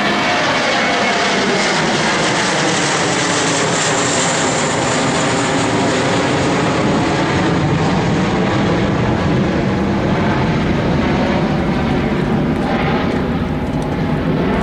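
Twin-jet airliner's engines running at climb power as it passes low overhead after takeoff: a loud, steady jet roar with a slow sweeping, swirling quality as it goes over.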